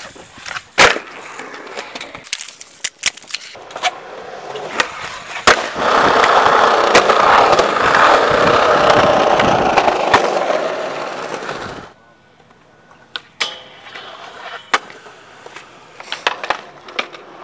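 Skateboards on concrete: wheels rolling with sharp clacks of boards hitting the ground. From about six to eleven seconds there is a loud, steady rolling of wheels over concrete close by. It then drops off suddenly to a quieter stretch with a few scattered clacks.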